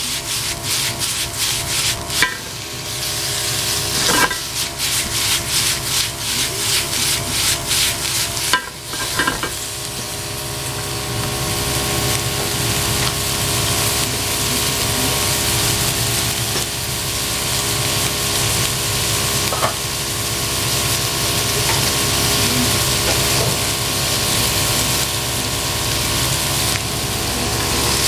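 Thinly sliced pork frying in a hot frying pan. For the first eight seconds or so the meat is stirred and tossed, giving a rhythmic rasping with a few knocks against the pan. After that it sizzles steadily, slowly growing louder.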